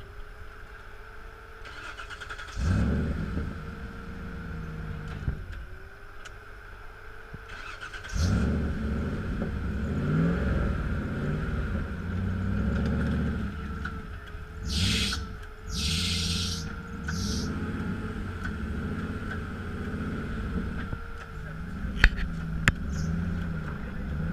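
Off-road 4x4 engine running and revving in uneven surges, louder from about a third of the way in, with a steady whine underneath. A few short hissing noises come near the middle.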